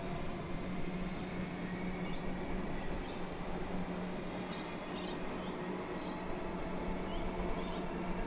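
Comeng electric suburban train pulling away down the line with a steady low hum, while small birds chirp repeatedly throughout.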